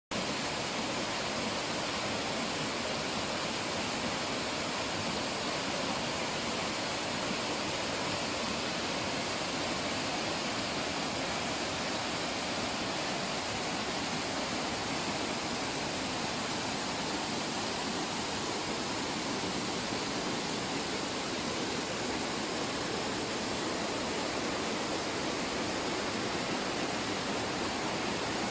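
Waterfall pouring into a pool: a steady, even rush of falling and splashing water.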